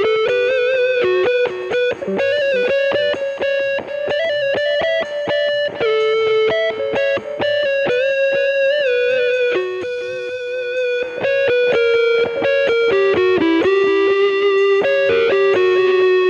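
Instrumental music: a distorted electric guitar plays a melody of held, sliding notes.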